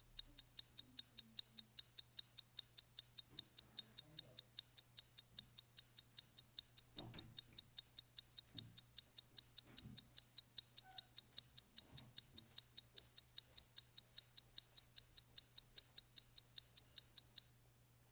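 Fast, even clock-style ticking, about four high-pitched ticks a second, that stops abruptly near the end. There are a few faint soft knocks in the middle.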